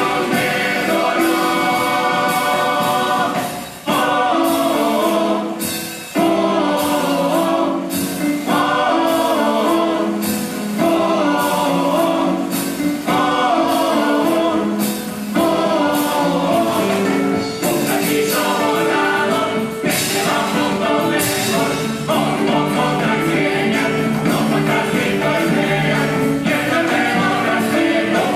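Uruguayan murga chorus singing a despedida (farewell song) together, over steady strokes of drum and cymbal.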